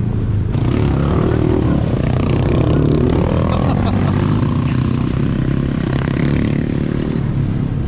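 Engine of a 4x4 vehicle running steadily as it drives.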